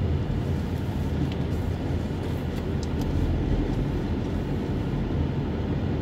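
Car driving along at a steady speed, heard from inside the cabin: a steady low engine hum under even road and tyre noise.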